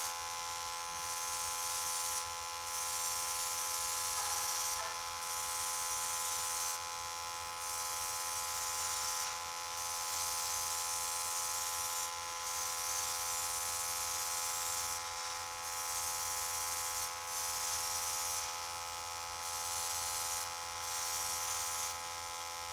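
Small airbrush compressor humming steadily while the airbrush sprays acrylic paint in repeated hissing bursts of one to two seconds, with short pauses between.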